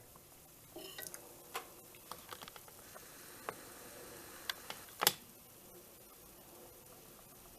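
Scattered light clicks and taps of small objects being handled, the loudest about five seconds in, over a faint steady hiss.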